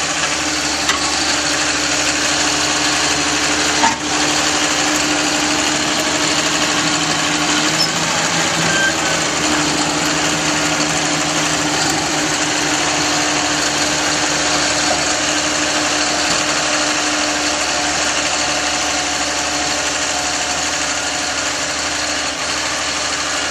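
Snowmobile trail groomer tractor's engine running steadily, with one sharp knock about four seconds in.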